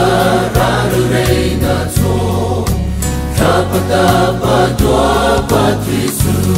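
Gospel choir singing in harmony over instrumental accompaniment with a strong bass.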